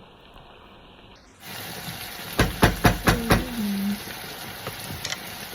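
Vegetable stew sizzling in a pot, with a quick run of five or so sharp knocks about halfway through.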